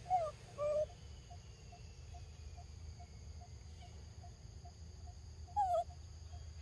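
Macaque giving short whimpering coo calls, twice in quick succession near the start and once more near the end, each call sliding in pitch. Behind them run a steady high insect drone and a faint ticking about three times a second.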